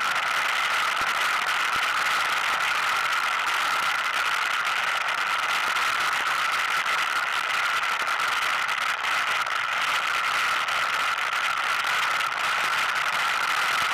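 ATV engine running steadily under way on a rough dirt trail, with a constant drone and a continuous light rattle and clatter from the ride over rocks.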